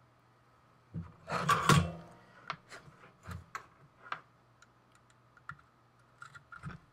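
Hands handling wires and the small plastic robot chassis: a louder spell of rattling and clicking about a second in, then scattered light clicks and taps, over a faint steady low hum.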